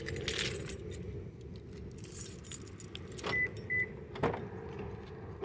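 A ring of car keys jangling in a hand, over a steady low hum. Past the middle come two short high beeps, then a sharp click as the car's door handle is pulled.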